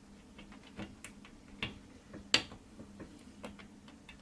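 Faint, scattered clicks and taps of fan-lead connectors and cables being handled inside a PC case, with one sharper click a little past halfway, over a faint steady hum.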